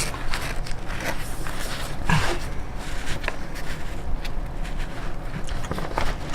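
Handling noise of a toolkit and its packaging: scattered light clicks and rustles, over a steady low hum.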